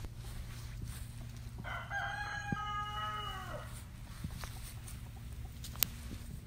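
A rooster crowing once, a call of about two seconds that falls in pitch at the end, over a steady low background hum. A single sharp click comes near the end.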